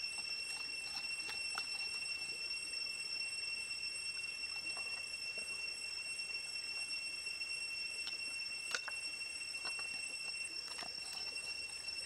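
Wooden spoon and knife spreading chili marinade over raw crocodile meat in a metal wok: scattered light taps and clicks, the sharpest about nine seconds in, over a steady high-pitched drone.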